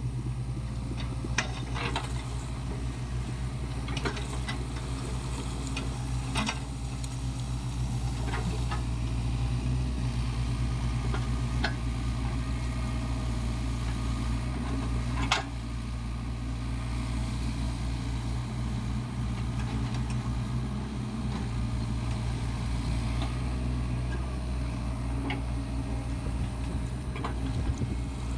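SANY SY55C mini excavator's diesel engine running steadily, with scattered short knocks and clanks; the sharpest comes about halfway through.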